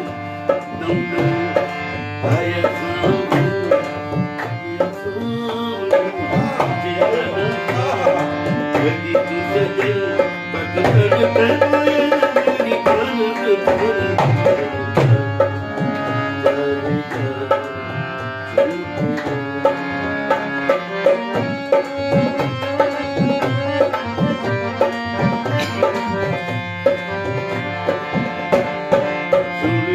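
Harmonium playing a melody in sustained reedy chords, accompanied by a dholak drum beating a steady hand-played rhythm.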